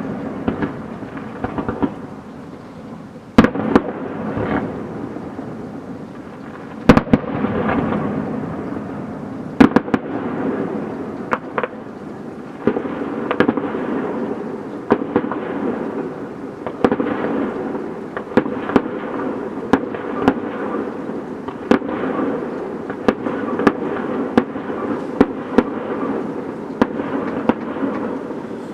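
Fireworks display: loud shell bursts bang every second or few seconds over continuous crackling from many smaller effects.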